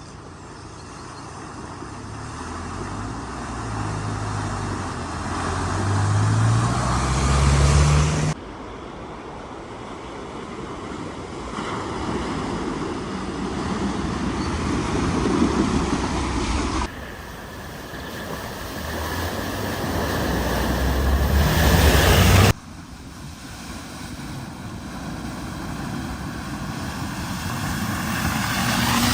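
Vehicles driving through deep floodwater in several short back-to-back clips: an engine revving up over a rush of spraying, splashing water. Each clip swells louder and is cut off abruptly by the next.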